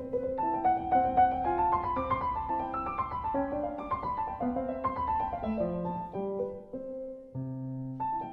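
Piano music: a quick melody of struck notes running up and down.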